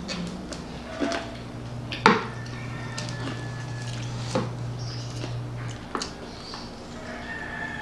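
Eating at a table: chewing and hands on fried chicken, with a few sharp clicks and knocks against the plates. The loudest comes about two seconds in. A faint thin high whistle comes and goes, the strong wind whistling outside the closed door and windows.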